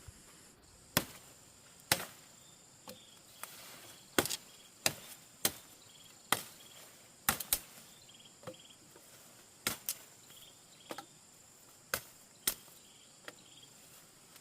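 Firewood being chopped: sharp blows at uneven intervals, about one a second and sometimes two in quick succession. Crickets chirp steadily in the background.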